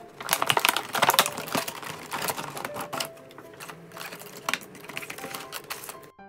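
Plastic toy packaging being handled and opened: crinkling plastic wrap and clicking of a hard plastic case. A dense run of crackles and clicks, loudest in the first second and a half, stops just before the end.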